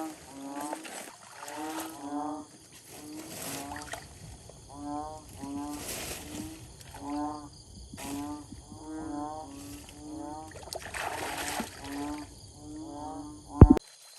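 An animal calling over and over, about one and a half short, buzzy calls a second. A single loud knock comes near the end.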